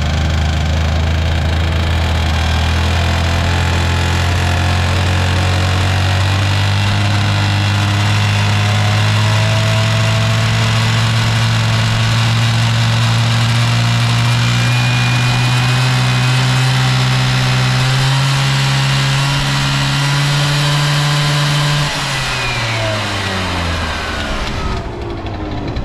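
Honda Super Tact AF09 scooter's 50cc two-stroke engine running at steady raised revs, its pitch creeping slightly higher, until the throttle is let off about 22 seconds in and the revs fall away toward idle. It runs with no abnormal noise.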